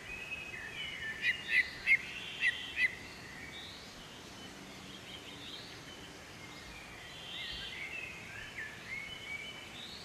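Small birds chirping and singing over a steady background hiss: a quick run of five loud, sharp chirps about a second in, then scattered high whistled notes, some rising.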